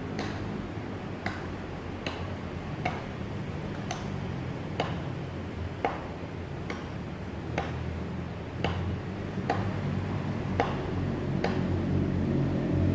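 A regular ticking, about one sharp tick a second in an uneven tick-tock rhythm, over a steady low rumble.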